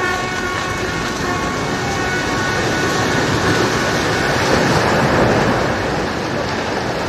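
A vehicle horn held on one long steady note while a loud, rushing rumble of a collapsing multi-storey building swells over it, loudest about five seconds in.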